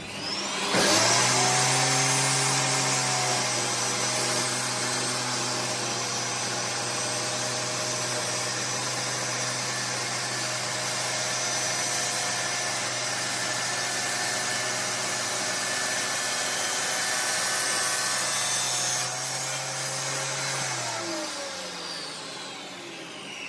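Table saw started up, running steadily while a glued-up mahogany and maple strip panel is crosscut on a sled, then switched off and winding down near the end.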